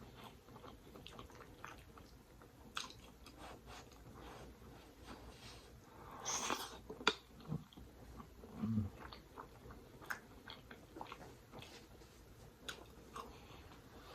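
Close-miked eating: a person chewing seafood pasta, with many small wet mouth clicks and a louder burst about halfway through.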